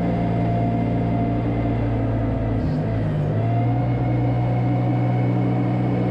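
Engine of a farm vehicle pushing a manure scraper blade through slurry, running steadily, with a brief dip in engine speed about three seconds in as the load changes.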